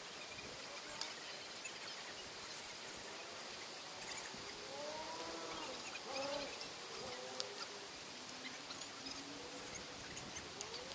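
Faint outdoor night ambience: insects chirping steadily, high-pitched, over a low hiss. From about four seconds in come several faint short tones that rise and fall.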